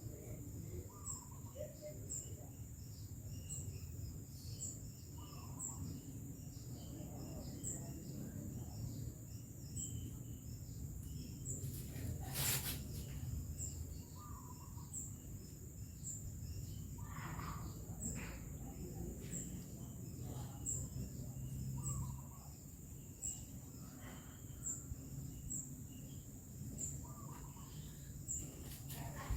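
Outdoor background with a steady low rumble, a high chirp repeating about once a second and scattered short bird-like chirps. A single sharp metallic click about twelve seconds in.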